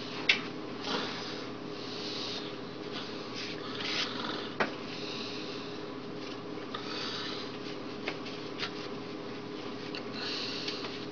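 Rustling and handling noises with a few sharp clicks, the loudest just after the start and another near the middle, over a steady low hum.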